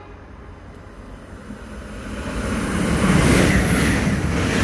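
Irish Rail 22000 class diesel multiple unit passing through a station at speed: a rumble and rush of wheels on rail and air that builds over the first three seconds and stays loud as the carriages go by.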